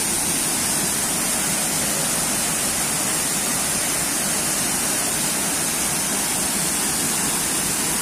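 Large waterfall pouring down a rock face into a pool: a steady, unbroken rush of falling water.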